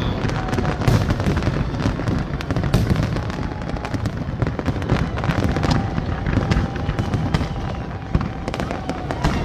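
Fireworks display going off: many shells bursting in quick succession, with sharp bangs and crackling over a continuous low rumble.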